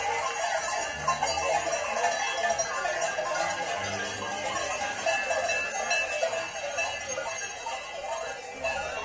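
Bells on a passing flock of goats and sheep clanking and jangling together, with the chatter of a crowd around them.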